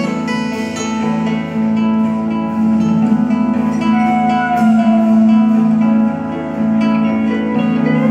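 A live band playing a song without vocals. Acoustic guitar is picked and strummed over long held low notes from a cello, with electric guitars and drums behind.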